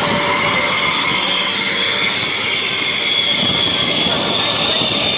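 Bus telolet horn, the multi-trumpet air horn of an Indonesian tour bus, sounding long high held notes that drift slightly in pitch, over steady traffic noise.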